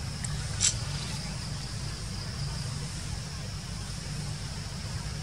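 Outdoor ambience: a steady low rumble under a faint, steady, high-pitched insect hum, with a single sharp click a little over half a second in.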